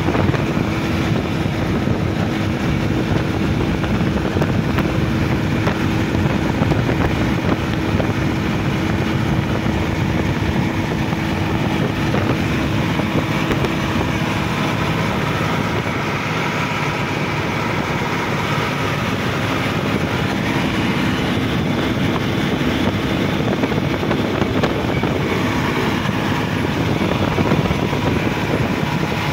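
Sonalika DI-50 RX tractor's diesel engine running steadily as the tractor drives along a road at travel speed.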